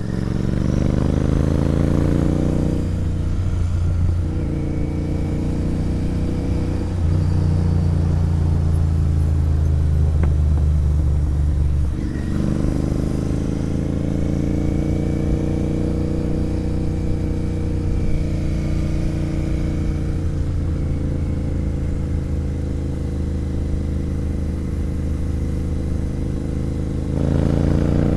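Royal Enfield Interceptor 650's 648 cc parallel-twin engine with an aftermarket sport exhaust, pulling under acceleration while riding. Its note climbs, drops at a gear change about 3 s in, holds steady, then picks up again about 12 s in and once more near the end.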